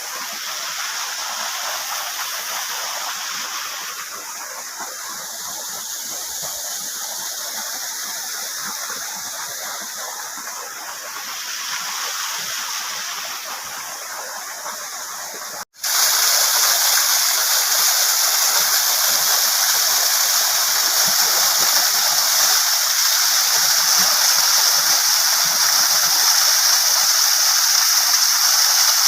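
Rain-fed waterfall rushing and splashing steadily, its flow swollen by recent rains. The sound breaks off for an instant about halfway through and comes back louder and brighter.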